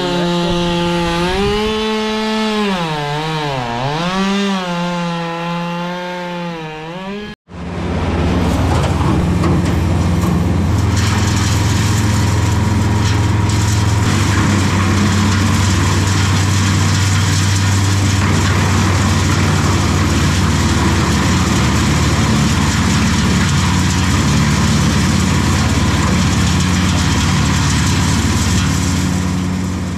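Chainsaw running and cutting, its engine pitch dipping and rising under load for about seven seconds. After a sudden break, a wood chipper runs steadily.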